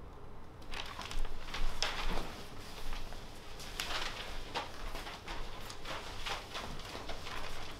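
Cloth sheet and paper rustling with shuffling footsteps on a stage floor: a string of short, irregular rustles and scuffs, the loudest about one to two seconds in.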